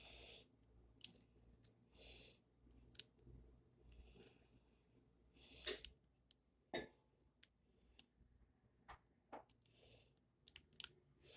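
Lock pick and tension wrench working the pins of a pin-tumbler deadbolt cylinder: faint, irregular small clicks and scrapes. A few soft hissing breaths come between them.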